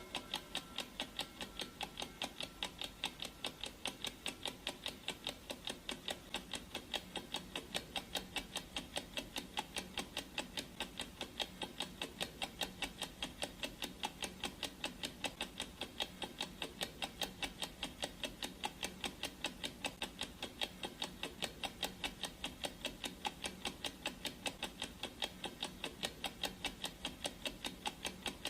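Clock ticking sound effect of a countdown timer: quick, even ticks, a few each second, without a break.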